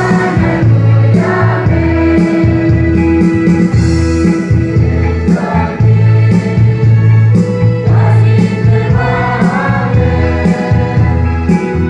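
A choir singing an offertory hymn with instrumental accompaniment, sustained bass notes changing every second or so under the voices.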